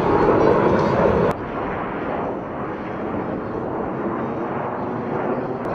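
Jet noise from Thunderbirds F-16 fighter jets in flight, a wide steady rush that is loud for about a second, then drops off abruptly to a quieter, continuing rush.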